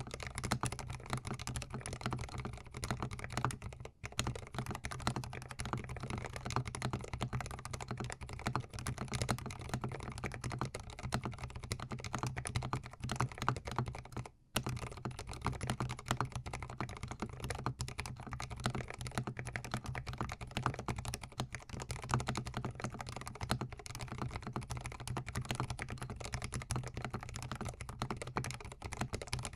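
Fast, continuous typing on a GMMK Pro mechanical keyboard fitted with Gateron Ink Black linear switches, heard close up. The clatter of keystrokes breaks off twice, briefly.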